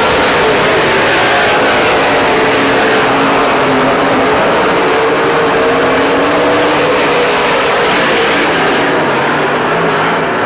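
Super stock race cars' engines running at speed around a dirt oval track, a loud steady drone whose pitch wavers slightly as the pack laps.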